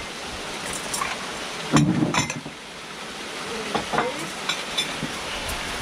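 Dishes and cutlery clinking on a table as food is served, with a louder knock about two seconds in. Faint voices can be heard.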